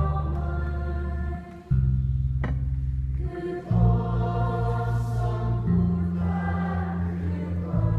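Wind band playing a slow song with singing voices: sustained low chords that shift every second or two. There is a brief drop in loudness about a second and a half in and a single sharp click a second later.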